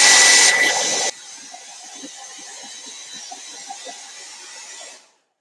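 Handheld hair dryer blowing with a steady high whine. About a second in it drops to a much quieter level and runs on until it cuts off near the end.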